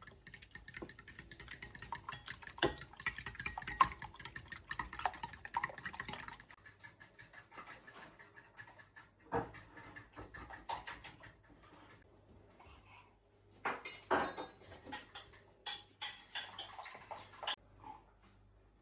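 Light clinking and clattering of small hard objects, like dishes or utensils being handled. It is a dense run of quick clicks for the first six seconds or so, then separate clinks and knocks, with a busier patch past the middle.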